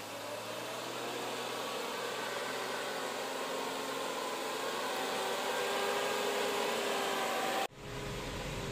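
Diesel engine of a heavily loaded goods lorry pulling uphill round a hairpin bend: a steady, hissy drone whose tones climb slowly in pitch and grow louder as the truck nears. The sound changes abruptly near the end to a lower hum.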